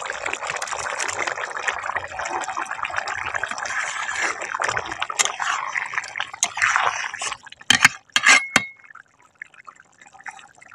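Chicken curry bubbling and simmering in a steel kadai as a spatula works through it, a busy wet crackle of bubbles. Near the end come a few sharp clinks, and then the sound drops away.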